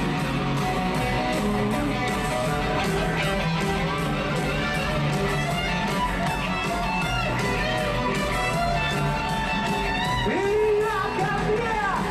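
Rock band playing live, a guitar-led instrumental passage with little or no singing, heard through an amateur recording made from the arena crowd.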